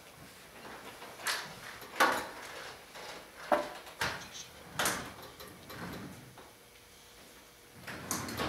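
A walking frame (walker) clacking on the stage floor, about five sharp knocks over a few seconds as it is lifted and set down step by step, then fainter shuffling.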